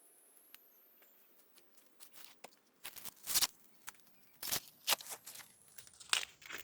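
Dry corn leaves and husks rustling and tearing in a series of short, irregular crackles, starting about two seconds in.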